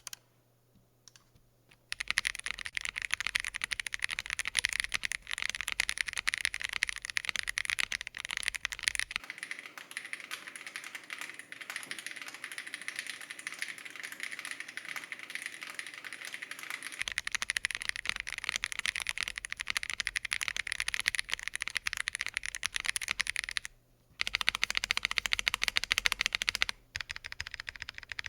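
Fast typing on an Akko MOD007s V2 full-aluminium gasket-mount mechanical keyboard fitted with Akko POM Pink switches: a dense run of key clacks. The typing starts about two seconds in and breaks off briefly twice near the end.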